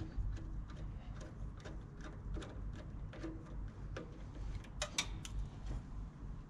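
Small irregular clicks and ticks as a 3 mm Allen key winds the grub screws out of a hydraulic pump's pulley, with a couple of sharper clicks about five seconds in.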